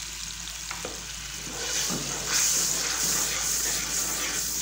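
Yogurt and spice masala sizzling in hot oil in a steel pot. About two seconds in the frying grows louder as a steel spoon stirs the yogurt into the masala.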